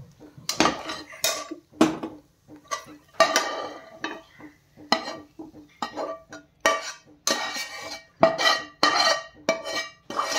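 Metal spatula scraping and clinking against a non-stick kadai and a white serving bowl as cooked quinoa is scooped out, about two strokes a second, each with a short ring.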